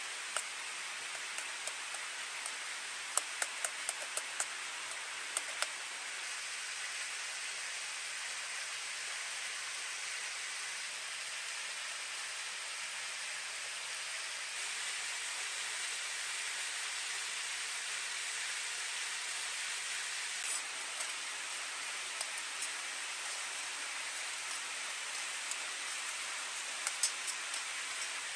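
Beaten egg and wild greens sizzling in hot oil in a steel pot over a small wood-burning stove: a steady frying hiss with scattered sharp pops and crackles, a cluster of them a few seconds in and a few more near the end.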